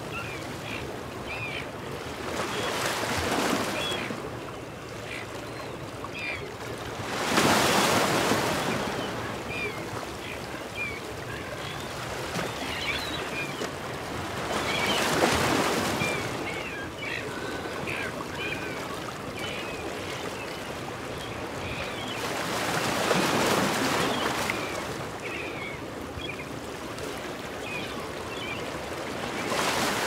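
Waves breaking and washing over a rocky shore, swelling up four times several seconds apart, the loudest about seven seconds in. Seagulls give short calls throughout.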